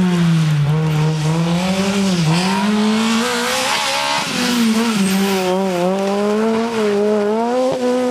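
Citroën C2 R2 Max rally car's four-cylinder engine at high revs, its pitch rising and falling over and over as the car is driven hard past, with a hiss of tyre and road noise around the middle.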